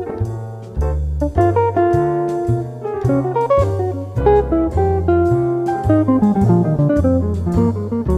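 Background music: a relaxed jazzy instrumental with plucked guitar, a walking bass line and light drums.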